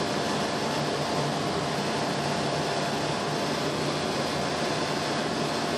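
Steady mechanical hum and whir of a ThyssenKrupp hydraulic elevator travelling in its hoistway behind the closed landing doors, with a faint steady whine over it.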